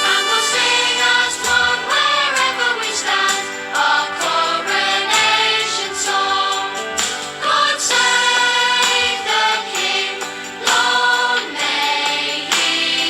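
Music with a choir singing, dense and continuous.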